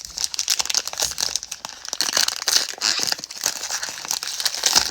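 Foil trading-card pack wrappers being handled and crumpled: a dense, continuous crackle of small crinkles.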